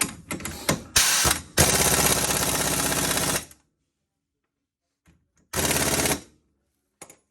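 Impact wrench running a bolt in, in rapid hammering bursts: a short one, then one of nearly two seconds, and another short one a couple of seconds later. A few tool clicks come at the start and near the end.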